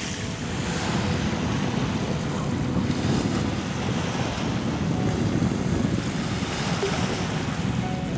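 Wind buffeting the microphone as a steady low rumble, over small waves lapping at a pebbly lakeshore.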